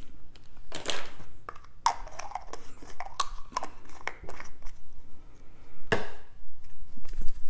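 Spice jars, caps and measuring spoons being handled: a run of light clicks, taps and scrapes, with a sharper click about six seconds in.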